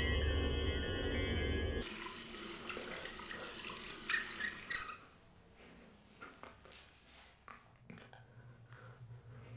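Steady held tones cut off about two seconds in and give way to an even hiss of running water, like a tap, which stops about five seconds in. Scattered faint drips and small clicks follow, with a low hum starting near the end.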